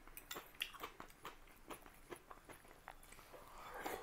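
Faint, close-miked chewing and mouth sounds of a person eating by the spoonful, with small irregular clicks throughout.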